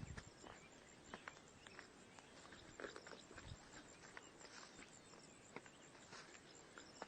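Near silence: faint outdoor ambience with scattered soft clicks and taps.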